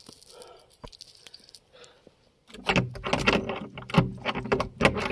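Soft faint rustling, then from about halfway a loud, dense run of scraping, clicks and knocks over a low rumble: a phone's microphone being handled and rubbed against a woollen shawl.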